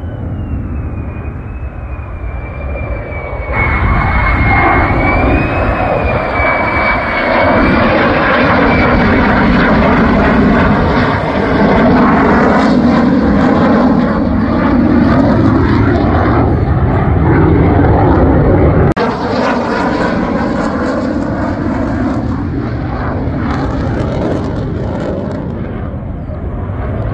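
Lockheed Martin F-35 Lightning II fighter with its Pratt & Whitney F135 turbofan flying low on approach with its landing gear down: a loud jet roar, with a high wavering whine over the first several seconds. The tone sweeps down and back up as the jet passes overhead. The sound changes abruptly about three and a half seconds in and again near 19 seconds.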